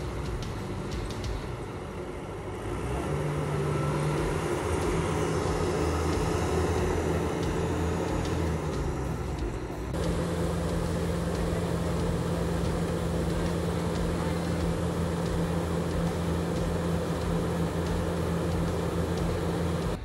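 Diesel engine of agricultural machinery running steadily under load, with a low, even drone. Its pitch sags briefly about eight seconds in, and about halfway through the sound switches abruptly to another steady engine drone.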